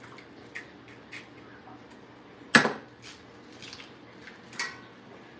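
Raw eggs being cracked over stainless steel bowls: a loud sharp knock about halfway through, with a few lighter taps and clicks around it.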